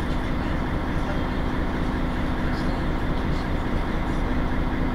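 Mercedes-Benz Citaro G C2 articulated bus's rear-mounted engine idling steadily at a stop, with an even low hum.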